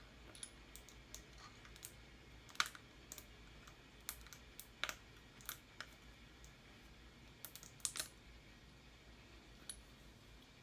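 Irregular sharp clicks and taps of parts being handled and fitted together while assembling a Dyson V8 cordless stick vacuum, with the loudest knocks about a third of the way in, halfway and near the end.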